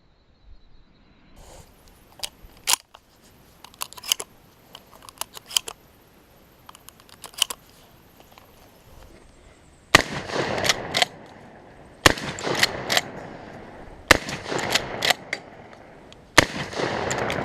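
Adler A110 12-gauge lever-action shotgun: a run of small sharp clicks and clacks of the gun being handled, then four shots about two seconds apart, with clacks between them.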